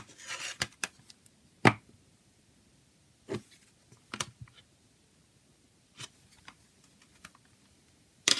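Plastic CD jewel case being handled: a brief brushing scrape, then scattered clicks and knocks as it is picked up and turned over, the loudest at about two seconds in, and a quick clatter at the very end as the case is flipped open.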